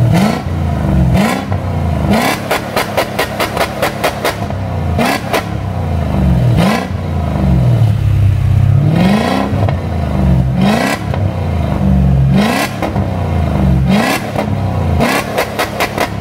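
Mercedes M113 5.0 V8 revved in repeated throttle blips through a 76 mm straight-pipe exhaust, each rev rising and falling back. Rapid crackling sounds come out on the overrun, about two to four seconds in and again near the end.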